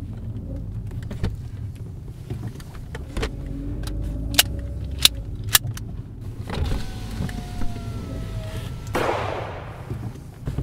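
Steady low rumble of a car interior, with three sharp clicks about half a second apart near the middle as the glove box is opened and handled. Faint thin tones follow, then a brief whoosh near the end.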